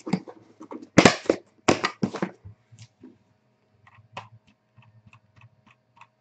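Cardboard box being handled and closed, making a few short scraping rustles in the first two seconds. About four seconds in, light computer keyboard typing clicks follow.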